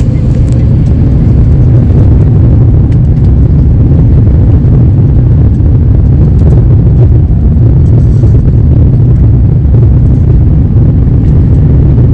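Loud, steady low rumble inside the cabin of an Airbus A350 airliner: its Rolls-Royce Trent XWB jet engines and airframe running.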